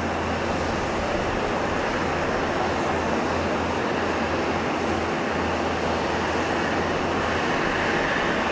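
Steady jet noise from a Bombardier CS100 airliner's Pratt & Whitney PW1500G geared turbofans on approach to land, an even roar that builds slightly near the end.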